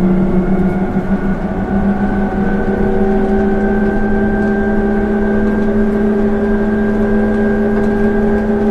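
Toshiba GTO-thyristor inverter and traction motor of an 8000-series trolleybus running, a whine of several tones rising slowly in pitch as the bus gathers speed, over a low rumble of running noise.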